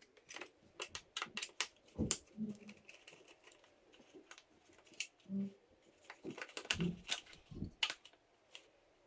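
Faint, irregular light clicks and taps with a few dull knocks: a T20 Torx driver and small steering-wheel trim parts and screws being handled.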